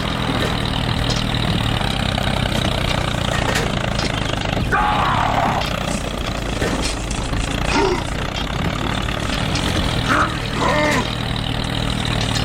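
Small engine of a DIY mini tractor running steadily at an even pitch, with a few short voice-like calls over it.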